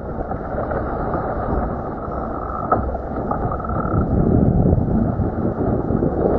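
Wind buffeting the microphone over water rushing and splashing against a small sailing dinghy's hull and the sailor during a windward capsize, with a few short sharp splashes.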